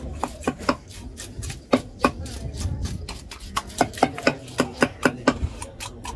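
A heavy knife scraping scales off a whole kal koduva fish on a wooden block: a string of short, sharp strokes, coming faster, about three or four a second, after about three and a half seconds.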